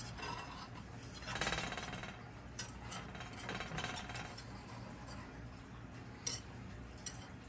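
Knife cutting cornbread in a cast iron skillet: soft scraping, then a few sharp clicks as the blade knocks against the iron pan.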